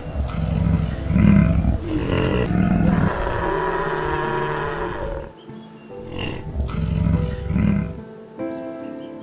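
Lion roaring in long, low, rough calls: a loud stretch of about five seconds, a brief pause, then another roar, with background music underneath.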